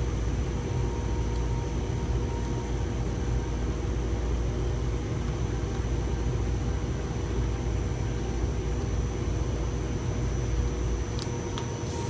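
A steady low rumble with a faint, even hum over it, and a couple of sharp clicks near the end.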